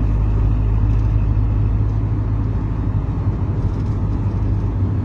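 Hyundai HR light truck's engine running with a steady low hum.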